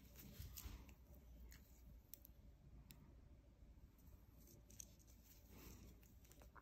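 Faint, irregular clicks of metal knitting needles tapping together as purl stitches are worked; otherwise near silence.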